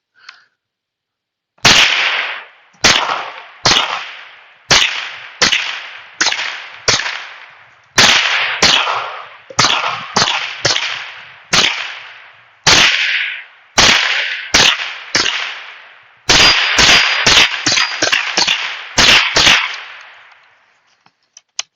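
Mossberg AK-47-style .22 Long Rifle semi-automatic rifle firing about thirty shots in a long string, each crack followed by a short echo, the pace quickening about two-thirds of the way through. The rifle cycles every round without a hitch.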